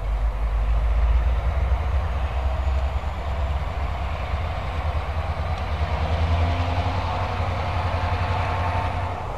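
Two EMD two-stroke diesel locomotives, a GP50 and a GP38-2, running light with no cars as they approach, giving a steady low engine rumble.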